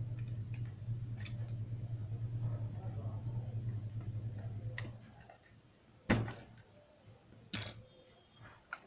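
A steady low hum that cuts off about five seconds in, then two sharp clicks of small hard objects being handled about a second and a half apart, and a fainter click near the end.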